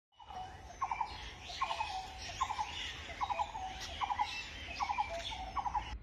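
Outdoor ambience with an animal call of three or four quick notes, repeated about every 0.8 seconds, seven times in all, over fainter chirps and a low steady rumble.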